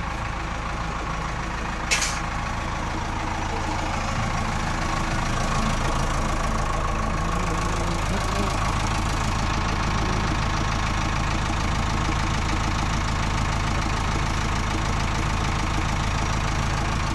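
JCB backhoe loader's diesel engine running steadily, picking up a little after about four seconds. There is one sharp click about two seconds in.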